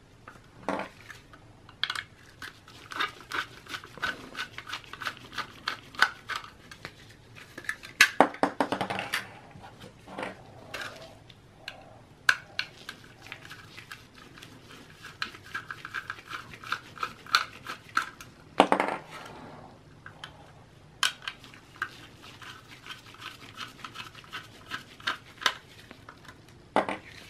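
Small Torx screwdriver turning out the screws that hold a solid-state drive in its bracket. It makes runs of fine rapid ticks and scrapes with scattered small clicks of metal and plastic, the loudest clicks about eight seconds in and again near nineteen seconds.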